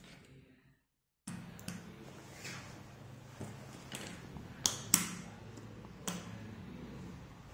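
Jigsaw puzzle pieces being handled and pressed into place: scattered light taps and clicks, the loudest two close together about five seconds in, over a steady low hum. The sound drops to silence for about half a second near the start.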